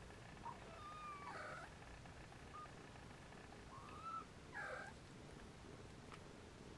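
Siamese kittens giving about five faint, short mews while they jostle to nurse, some with a bending pitch, spread over the first five seconds.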